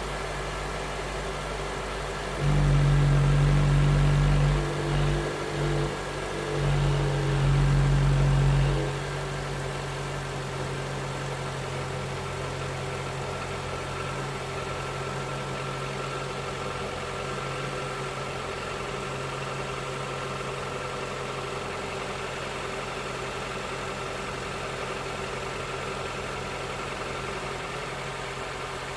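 Honda Element's 2.4-litre four-cylinder engine idling, revved up twice a few seconds in and then settling back to a steady idle. The engine has an abnormal noise that is tagged as rod knock.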